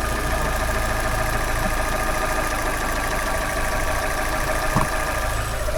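Fiat 500 engine idling steadily, with a constant high-pitched whine over the running. The owners take the whine for a timing belt that needs replacing.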